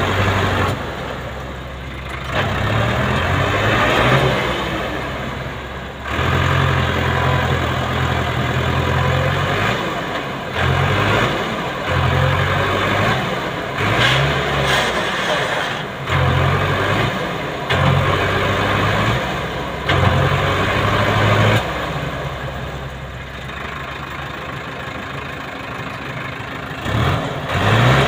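Sonalika DI 60 RX tractor's diesel engine labouring under load as it hauls a loaded trailer through loose dirt, its note surging up and dropping back again and again every second or two.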